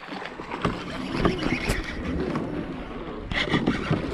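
Scraping, knocking handling noise and wind on the microphone while an angler in a kayak cranks a baitcasting reel against a hooked bass, with a louder scuffle a little before the end.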